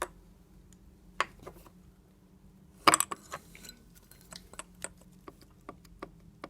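Loose left connecting rod of a Jawa California two-stroke twin clicking metal on metal as it is rocked up and down and sideways by hand on its crankpin: a few sharp clicks, the loudest cluster about three seconds in, then many light ticks. The play comes from a failed big-end needle bearing whose cage has broken up.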